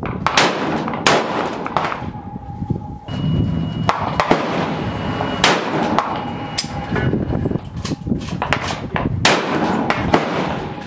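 Gunfire on a shooting range: a run of sharp reports at irregular intervals, a handful of loud ones with many fainter ones in between, too many for one bolt-action rifle, so other shooters' guns are heard as well.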